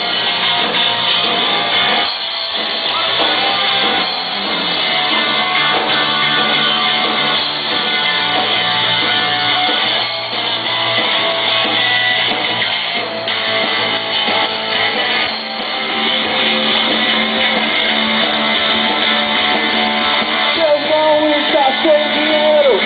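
Rock band playing live, an instrumental passage led by guitar.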